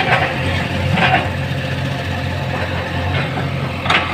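JCB backhoe loader's diesel engine running steadily while its front bucket pushes into a brick wall. Sudden knocks and crashes of breaking masonry come at the start, about a second in, and near the end.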